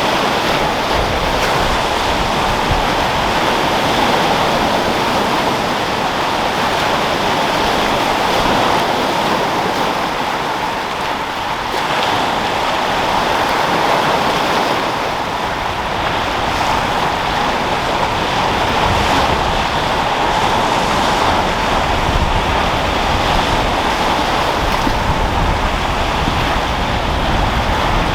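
Sea waves washing and breaking in a continuous rush of surf, with wind. Gusts of wind rumble on the microphone in the second half.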